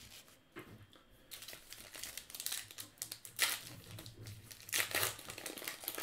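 Crinkling of 2020 Bowman Heritage baseball card pack wrappers: the packs are handled, then one is torn open by hand, in a series of short rustling bursts.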